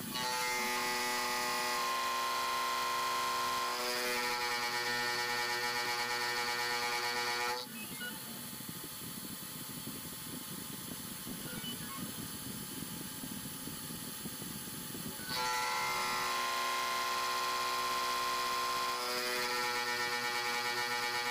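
Cheap CNC spindle, in its original unreworked state, driving an end mill through a metal block. It gives a loud, pitched squeal that jumps to new pitches a few times. From about eight seconds in to about fifteen it drops to a quieter, rougher cutting noise without a clear pitch, then the squeal returns. The squeal is the kind of ringing that comes when a spindle is not stiff enough.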